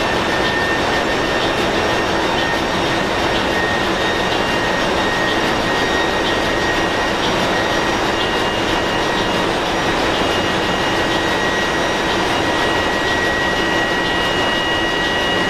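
Engine-room noise of a ship's large low-speed marine diesel main engine running steadily after start-up, a loud, even din with a steady high whine over it.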